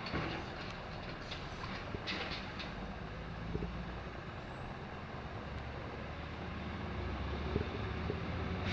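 Automated side-loader garbage truck: a few knocks and clatter in the first couple of seconds as the arm sets the emptied cart down and retracts, then the truck's engine running steadily as it pulls away down the street.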